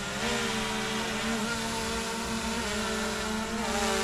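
DJI Air 2S quadcopter hovering close by, its propellers giving a steady buzzing whine whose pitch dips and rises briefly a few times as it adjusts position to come in to land.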